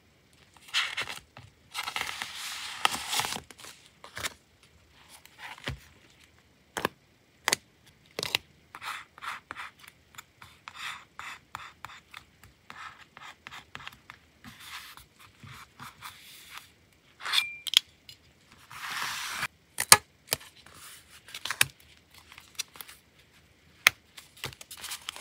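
Paper and sticker handling: dry rustling and peeling of paper and sticker sheets in two longer stretches, with many short taps and clicks of metal tweezers pressing stickers onto a paper page. A sharp click near the end comes as fingers work a small metal binder ring.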